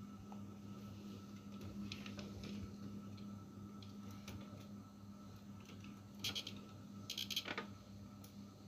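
Faint handling sounds from cosmetics in a clear acrylic makeup organizer: scattered light clicks, with short clusters of clicking and rattling about six seconds in and again around seven seconds. A steady low hum runs underneath.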